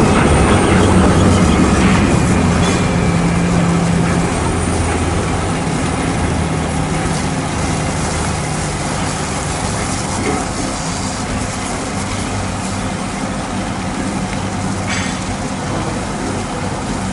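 Water jet from a hose spraying against a heavy truck's front, a steady hiss and splatter, over a low engine running steadily.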